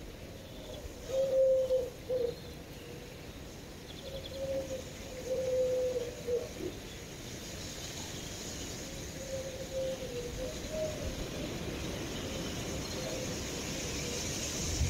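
A pigeon or dove cooing outdoors: a loose series of short, low coos. A steady background hiss grows slightly brighter near the end.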